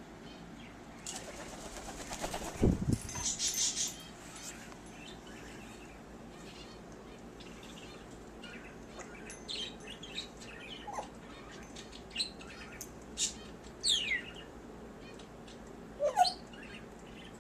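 African grey parrot: a burst of wing and feather noise with a thump a couple of seconds in, then scattered short soft clicks and chirps, her imitation of hiccups. Two quick falling whistles come near the end.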